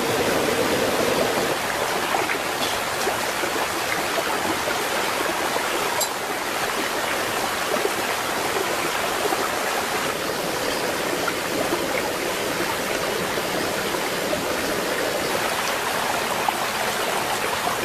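Stream water running steadily over rocks.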